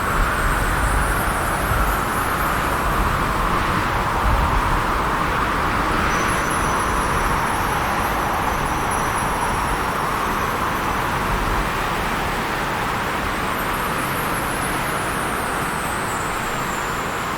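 Winter wind howling steadily, its pitch drifting up and down, with low gusty rumbles in the first few seconds. Faint high ringing of Christmas bells sits above it, clearest from about six seconds in.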